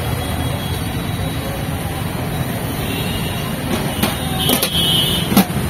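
Steady rumble of passing road traffic, with a few light knocks about four seconds in and near the end.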